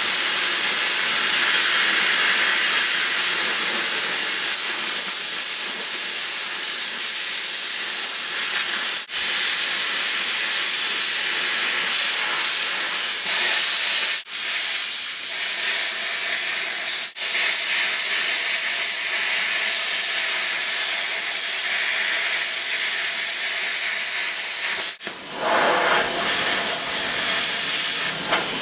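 Harbor Freight plasma cutter cutting through a steel I-beam flange, its arc and air jet giving a loud, steady hiss. The hiss drops out for an instant three times and breaks briefly near the end.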